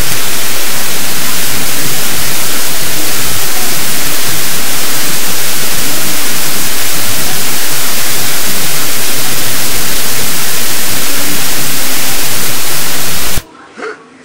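Loud, steady static hiss with no tone or rhythm, which cuts off suddenly near the end.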